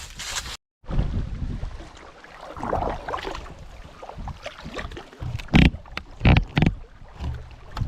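Gear being loaded into a canoe: shuffling handling noise and a few loud knocks, the loudest clustered a little past the middle.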